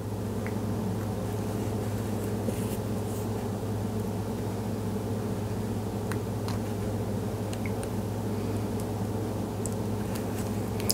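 A steady low mechanical hum, with a few faint small clicks of thin lure wire being bent and handled by hand.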